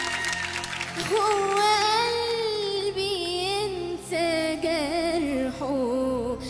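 A woman singing a slow, ornamented Arabic vocal line with wavering vibrato and long held notes, over instrumental accompaniment.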